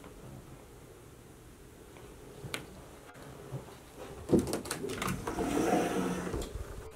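A closet door being opened: a sharp knock about four seconds in, then a couple of seconds of rattling and rubbing, after a few faint clicks.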